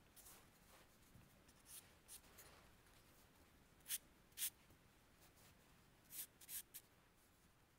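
Pencil or chalk scratching on textured drawing paper in a few short strokes: soft ones at first, two sharper scratches about four seconds in, and three more a little after six seconds.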